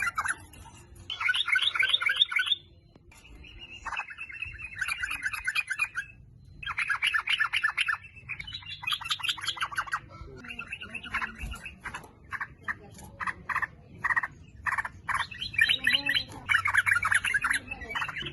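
Yellow-vented bulbul (trucukan) singing in repeated bursts of fast, bubbly chattering notes, each burst about one to two seconds long with short pauses between. Around the middle it gives a run of separate short notes.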